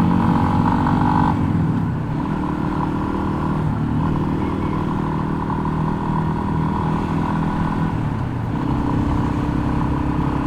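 A Yamaha XT250's single-cylinder four-stroke engine running under way, with a rough sound that the rider puts down to rattling. The engine note drops about a second in and changes again about eight seconds in.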